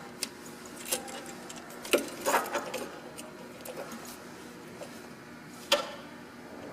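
Scattered light clicks and small plastic-and-metal knocks from wire connectors being handled and plugged onto a valve body's solenoids, the sharpest click about two seconds in and another near the end.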